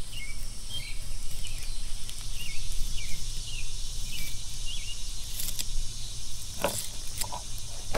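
Outdoor insect chorus, crickets or similar, with a steady low hum and short chirps repeating every second or so. A few sharp clicks sound in the second half.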